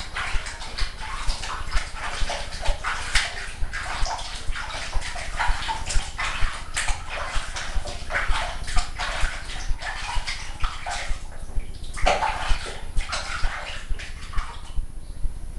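A cat being washed in a basin of water: water splashing and sloshing as it is scrubbed, with the cat crying out in distress. A soft regular thump sounds about twice a second throughout.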